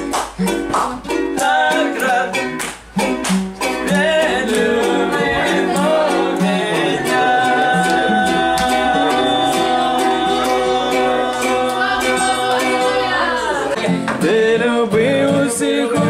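Acoustic guitar and ukulele strummed together with voices singing a song, with sharp claps in the first few seconds and long held sung notes after.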